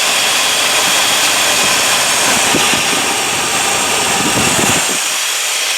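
1979 Ford F-250 pickup engine idling, with a loud steady hiss over a low rumble. The engine now starts and runs after the crank-no-start diagnosis.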